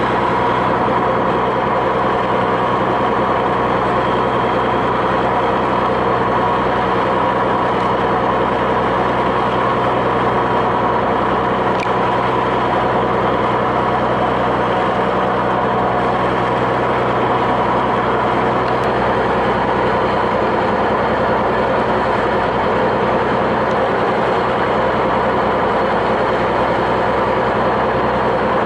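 Fishing boat's inboard marine diesel engine running steadily under way, a constant even drone.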